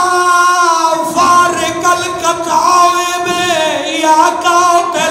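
A man singing a devotional qasida into a microphone, with long held notes that waver and slide between pitches.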